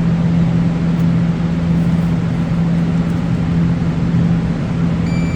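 A steady low hum runs throughout. About five seconds in, a multimeter's continuity tester starts a single steady high beep, the sign that the probed green wire connects to the pin being tested.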